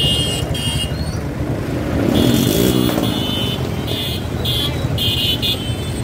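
Diesel tractor and motorcycle engines running in a slow-moving procession, a steady low rumble, with short high-pitched tones sounding on and off over it.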